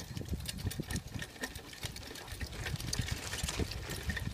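Dog-drawn tricycle rolling over a rough dirt trail: a fast, continuous run of rattling clicks and knocks from the trike and its hitch. It grows a little louder over the last second or so.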